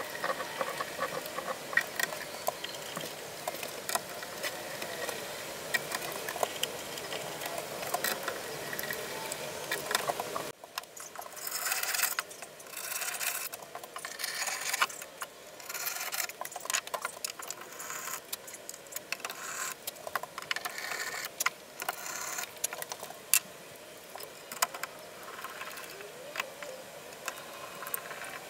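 Workbench handling sounds as pine tongue-and-groove back boards are fitted and screws are laid out: many small clicks, scrapes and rustles, with the character of the sound changing abruptly about ten seconds in and short bursts of rustling after that.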